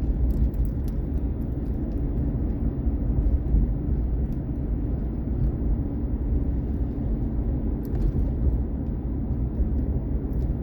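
Steady low engine and road rumble of a vehicle being driven, heard from inside the cab, with a few faint clicks and rattles.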